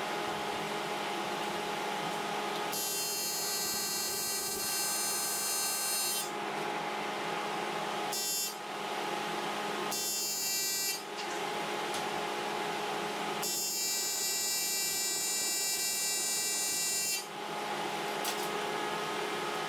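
Aluminum being tack-welded with an AC TIG arc, which buzzes in four bursts: two of about three and a half seconds and two short ones between them. A welding machine hums steadily under and between the bursts.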